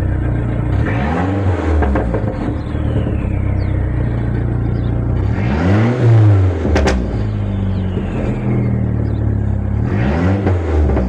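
Car engine revved up and let back down three times, with a steady idle between the revs. After each rev a faint high whistle slides down in pitch, the sound of a fake turbo whistle fitted in the exhaust.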